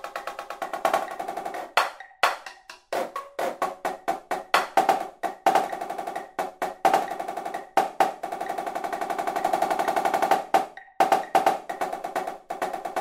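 Marching snare drum playing a rudimental drumline exercise at 130 beats per minute: fast accented strokes with grace notes, broken by short rests between phrases. About eight seconds in, a sustained roll swells in loudness before the phrases resume.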